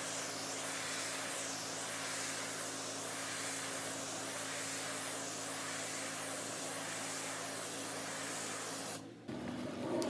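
Pressure washer running, its water spray hissing steadily over the low hum of the engine and pump, swelling and fading in slow sweeps a little over once a second. The spray cuts off suddenly near the end.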